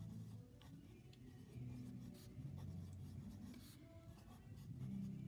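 A pen writing on a paper worksheet: faint scratching strokes of handwriting.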